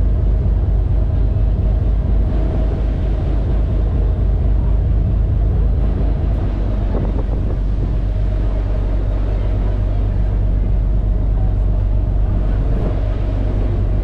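Passenger ferry's engines running with a steady low drone over churning wake water, heard from the open stern deck. The low throb pulses evenly at first and evens out about six seconds in.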